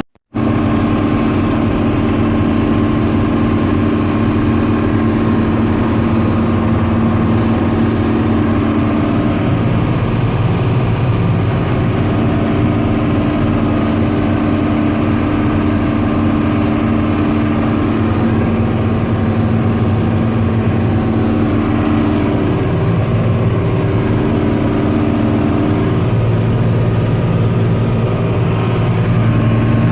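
Combine harvester machinery running steadily while threshing tough wheat, heard from the cab: a constant engine and threshing drone with several humming tones that shift a little. It cuts in after a brief gap at the very start.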